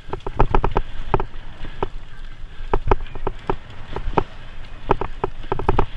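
A bicycle rattling and clattering as it rides over a bumpy dirt and gravel trail: irregular sharp clacks, often in quick clusters, over a steady low rumble of tyres and wind.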